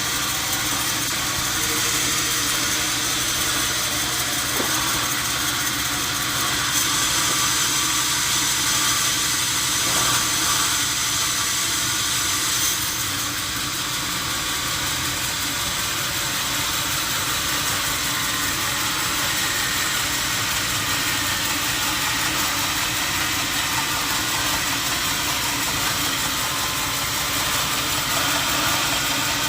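Sawmill machinery running steadily: a loud, even mechanical din with a strong hiss, growing brighter for a few seconds in the middle.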